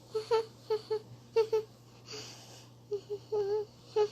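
A baby babbling in short, high-pitched syllables, with a breathy hiss about two seconds in.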